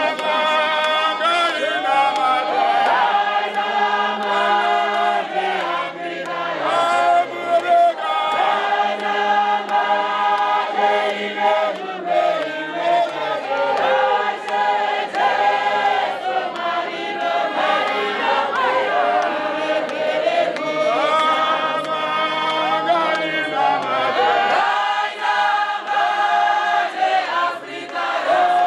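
A large congregation singing a hymn together, many voices holding long notes and gliding between them.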